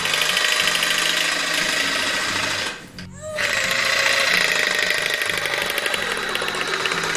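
Cordless reciprocating saw running, its blade sawing through the rind of a pumpkin to cut a lid around the stem. The saw stops briefly about three seconds in, winding down, then starts again and keeps cutting.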